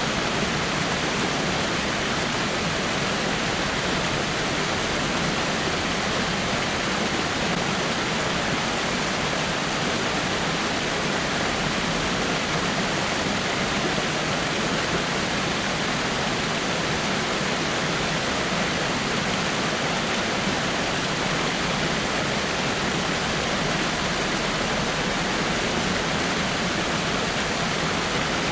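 Small waterfall splashing over rocks: a steady, unbroken rush of falling water.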